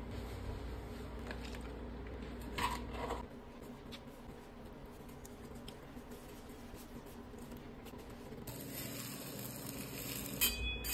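Soft rustling of a flour tortilla being folded and rolled by hand into a burrito, over a low steady hum. About eight and a half seconds in, a faint hiss starts as the burrito is laid on a hot pan to sizzle.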